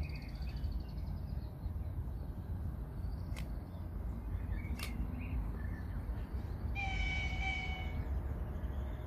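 Distant EP1 electric locomotive sounding its horn: one steady blast of about a second, near the end. Under it a low steady rumble, with two sharp clicks around the middle.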